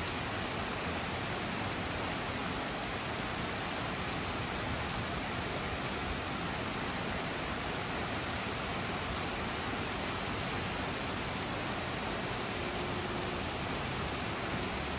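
Steady rain falling on a street and the trees over it: an even, unbroken hiss.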